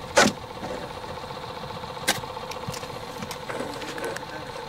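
Boat motor running steadily with a constant hum, and a sharp knock just after the start and a click about two seconds in.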